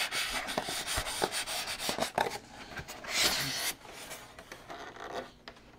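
Styrofoam packing insert rubbing and scraping against the cardboard box as it is worked loose and lifted out, with many small crackles. It is loudest about two and a half to three and a half seconds in, then dies away.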